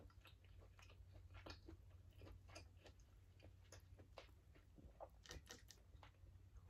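Faint chewing of buttered lobster tail: soft, irregular wet mouth clicks, a little denser about five seconds in, over a low steady hum.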